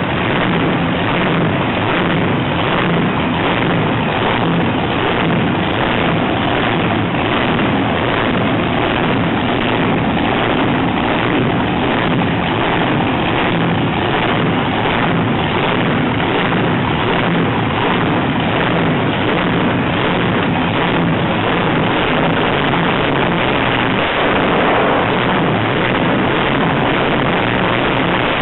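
Supercharged 454 big-block Chevy drag engine (BDS 6-71 blower, Enderle mechanical fuel injection, running on gasoline) running loud and steady on a test stand at a lumpy, loping race-engine idle rather than a smooth one.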